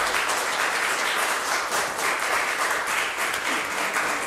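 An audience applauding steadily: many people clapping at the close of a lecture.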